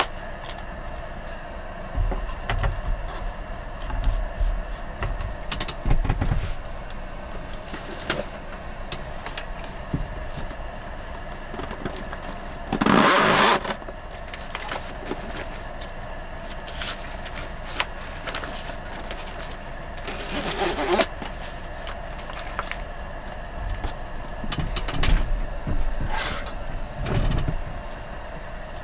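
Handling sounds at a wooden table: soft knocks and thuds as a wooden cutting board is handled and set down, then a cardboard box is opened and a thin plastic cutting sheet is slid out with a loud, brief rustle about halfway through. Smaller rustles follow as the sheet is laid flat on the board, over a steady faint hum.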